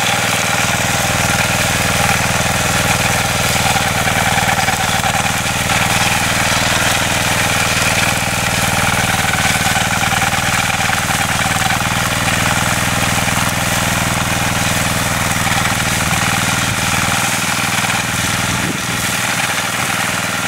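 Walk-behind tractor's engine running steadily under load while driving a rotary mower through tall grass. There is a slight dip in level near the end.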